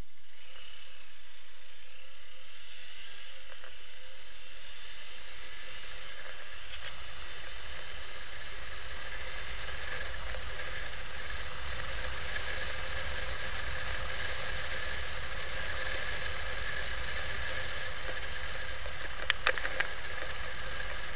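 Motorcycle being ridden, picked up by a camera mounted on the bike: a steady mix of engine, wind and road noise with a faint steady whine, and a few clicks near the end.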